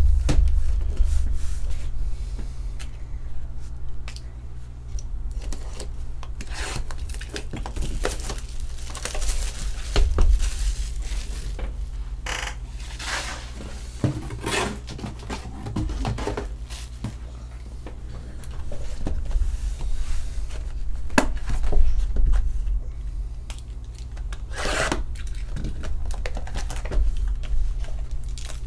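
Cardboard trading-card boxes being handled on a tabletop: sliding, rubbing and knocking against the table and each other, with scattered clicks and rustles and a few louder knocks. A steady low hum runs underneath.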